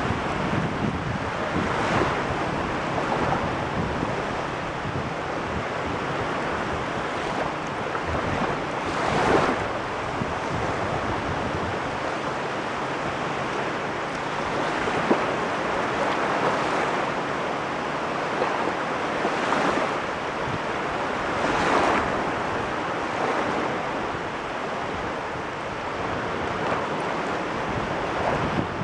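Waves breaking and washing in, a continuous rush with a louder surge every few seconds.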